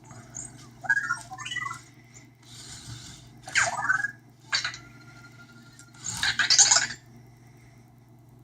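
Anki Vector home robot making short bursts of sound: a warbling electronic chirp about a second in, then several brief whirring bursts from its small motors as it moves, with a short steady beep between them.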